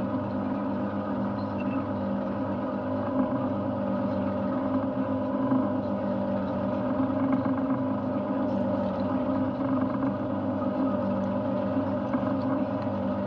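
Boat's Yamaha outboard engine running steadily, an even drone.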